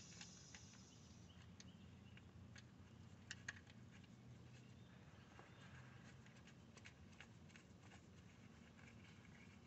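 Near silence: low room tone with faint scattered light clicks, two slightly louder ones close together about three and a half seconds in.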